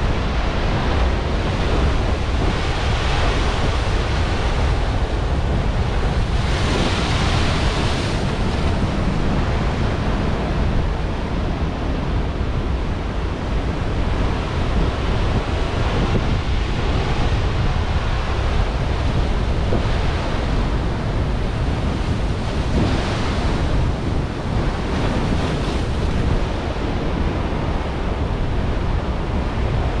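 Heavy Atlantic surf breaking on a rocky shore: a continuous rush of churning foam that swells into brighter hissing surges each time a wave breaks, the biggest about a quarter of the way in. Wind on the microphone adds a low rumble underneath.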